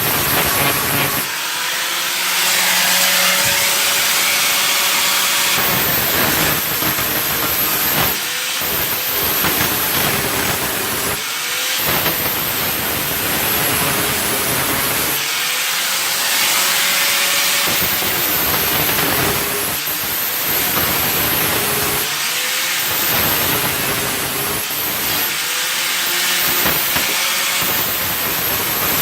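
A power tool runs in repeated stretches of a few seconds each with a loud hiss. Each stretch opens with a faint rising whine as the tool spins up.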